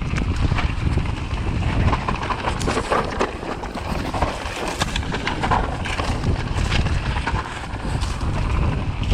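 Wind buffeting the microphone, a steady low rumble with scattered knocks and rattles.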